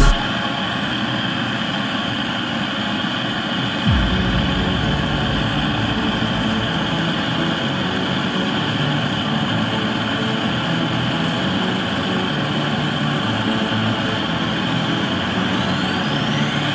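Gas-cartridge blowtorch burning with a steady hiss as a steel knife blade is held in its flame; a deeper rumble joins the flame noise about four seconds in. Rising whistle-like tones come in near the end.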